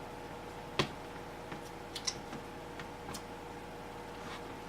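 A few light, sharp clicks and taps from hands working a replacement laptop battery and its connector cable into a MacBook Pro. The first, about a second in, is the loudest. A faint steady hum runs underneath.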